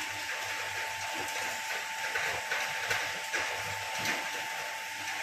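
Paddle mixer running, its curved steel paddles churning a load of plastic pellets being mixed with colorant: a steady rushing hiss of tumbling pellets with a constant high whine from the machine.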